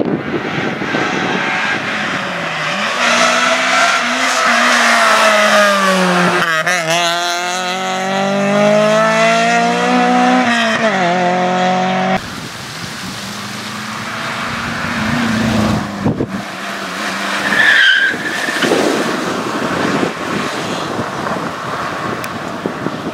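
Competition hatchbacks running an autoslalom course, one car after another with a cut about twelve seconds in: the engine revs rise and fall between gear changes and corners, and a short tyre squeal comes about three-quarters of the way through as the second car, a Peugeot 207, turns hard.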